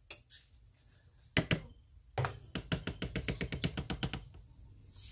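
Serving spoon knocking against the rim of a glass casserole dish and a plastic bowl: a click, two loud knocks, then a quick run of about fifteen even taps, about seven a second.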